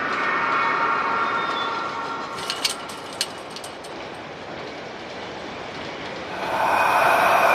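Abandoned amusement-park horror ambience: a steady rumbling bed with long metal-on-metal screeches, as of ride wheels squealing on rails. One screech comes at the start and a louder one near the end, with a few sharp clanks about two to three seconds in.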